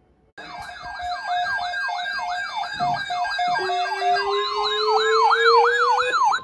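Electronic emergency-alert siren tones, several layered. A fast up-and-down wail of about two sweeps a second starts abruptly. About halfway through, a steady tone and a slowly rising lower tone join it, and it all cuts off suddenly.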